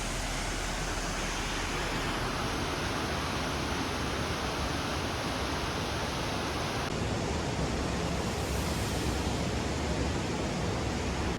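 Waterfall rushing steadily, a dense, even roar of falling water, whose character shifts slightly about seven seconds in.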